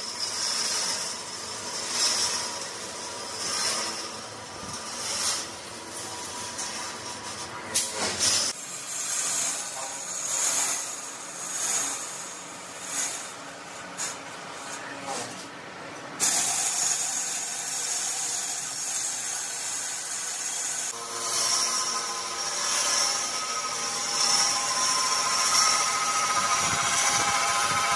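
Workshop metalworking machinery running, a steady mechanical hiss and hum. For the first half the noise swells and falls in a regular rhythm about once a second or so. It changes abruptly several times, and in the last part settles into a steadier hum with several held tones.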